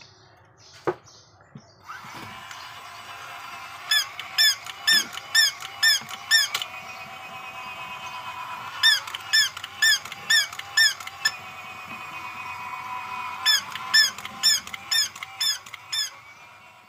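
Battery-operated walking plush toy animal: its small gear motor whirs steadily while its speaker plays three bursts of short electronic yapping calls, six or seven quick calls in each burst.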